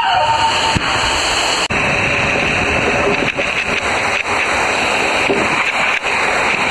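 Steady loud rush of water and a rider sliding down inside an enclosed loop water slide tube, a continuous hiss with no break.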